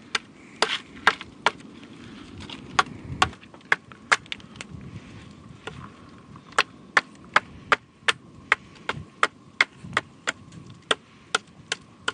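Large bushcraft knife chopping into an upright split-wood paddle blank to rough out the shaft: a steady series of sharp wooden strikes, about two to three a second.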